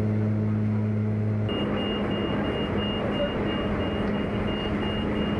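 Jump plane's engines droning steadily inside the cabin. About a second and a half in, this gives way to a loud rush of wind through the open jump door, with a high beep repeating a few times a second.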